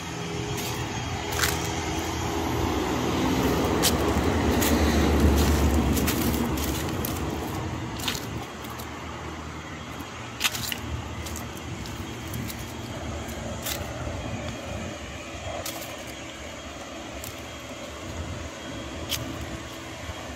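A car passes by, building to loudest about five seconds in and then fading into steady outdoor background. Scattered sharp clicks sound now and then.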